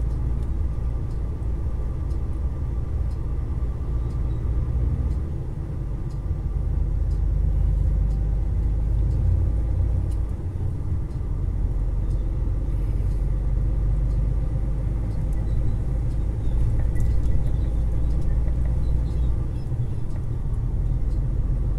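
Semi-trailer truck driving on the highway, heard from inside the cab: a steady low rumble of engine and road noise.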